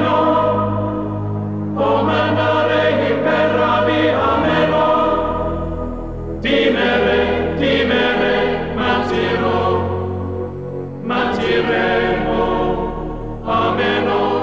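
Choral chant music: a choir sings in long phrases over steady low bass notes, with short breaks between the phrases.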